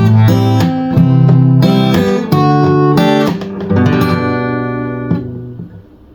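Steel-string dreadnought acoustic guitar, a Chinese-made copy of a Martin D-45, strummed in chords. About four seconds in, the last chord is left to ring and fades away near the end.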